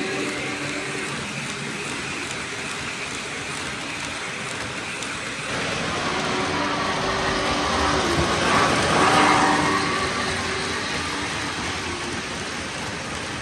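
O gauge three-rail model train rolling past, its wheels on the track making a steady rumbling hiss that swells a little in the middle. A held low two-note tone sounds for several seconds in the middle.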